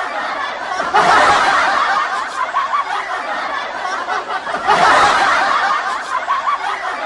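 People laughing in a long, choppy stretch, with louder swells about a second in and again around five seconds.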